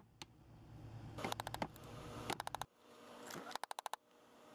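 Light, quick hammer taps on a steel chisel driven under the cut edge of a fiberglass deck's top skin, in three fast runs of four to six strikes each, working the skin loose from the core.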